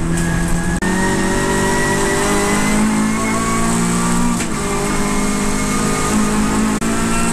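Saloon race car's engine heard from inside the cockpit, pulling hard with its note slowly rising as the car accelerates. The note breaks briefly about a second in and again near the end.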